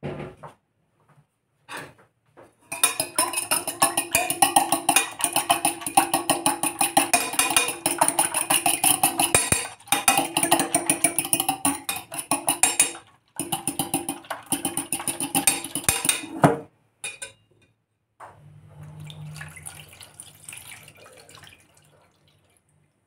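A metal fork beating an egg in an enamelled steel bowl, the tines clicking rapidly against the bowl with two brief pauses. Near the end, milk poured from a glass into the bowl, a softer splashing pour.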